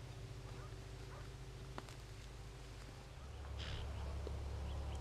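A blesbok gives one short, breathy alarm snort about three and a half seconds in.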